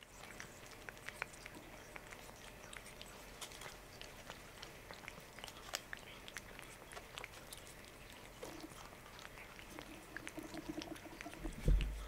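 A domestic cat licking paste from a Churu treat tube: a quick, irregular run of small wet tongue-and-mouth clicks. A brief low steady tone comes about ten seconds in, and a soft thump near the end is the loudest sound.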